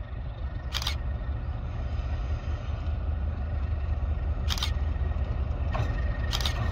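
Diesel locomotive running with a steady low rumble and a thin steady high whine, broken by three short hisses.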